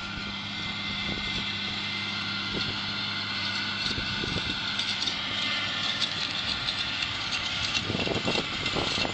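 Fendt tractor running steadily under load while pulling a self-loading forage wagon that is picking up cut grass, a steady high whine over the engine hum. From about eight seconds in, rapid clattering and rattling join it as the wagon passes close.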